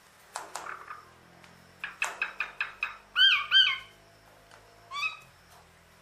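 Common hill myna calling: a harsh burst, then a quick run of about six sharp clicking notes, then two loud whistles that each rise and fall, and one more short rising whistle near the end.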